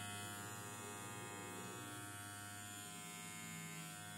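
WMARK NG-108 cordless hair clipper switched on and running, a steady motor buzz.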